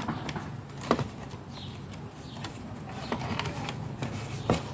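Scattered clicks and knocks of hands handling plastic wiring plugs and panel parts on a dishwasher's power board, about four sharp knocks with the loudest about a second in and near the end.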